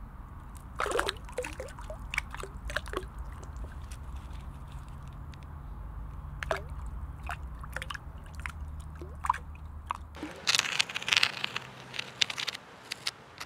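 Hand in shallow river water making small drips and plops over a steady low rumble. About ten seconds in, the rumble cuts out and a stick scrapes along a rough stone parapet.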